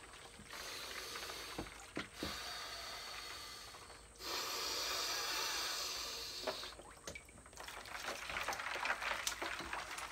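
Long hissing breaths in and out, then water splashing and sloshing in a cooler of ice water as a head is plunged into it near the end.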